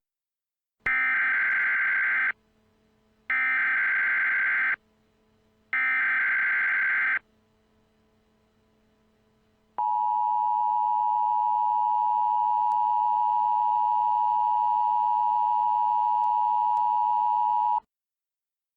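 Emergency Alert System header: three bursts of buzzing SAME digital data tones, each about a second and a half long, then after a short pause the two-tone EAS attention signal, a steady tone held for about eight seconds that cuts off suddenly.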